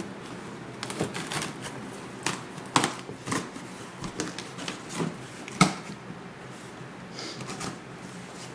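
Cardboard shipping box being cut open and handled: irregular scrapes, rustles and sharp knocks, the loudest about three and five and a half seconds in.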